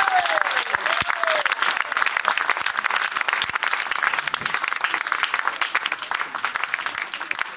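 Group of people applauding, dense clapping that slowly thins out and fades toward the end, with a few voices calling out at the start.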